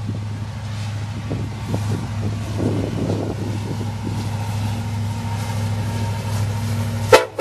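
Diesel freight locomotives approaching, led by a CN EMD SD70M-2, with a steady low engine rumble that builds slowly as they near. A short, loud burst comes near the end.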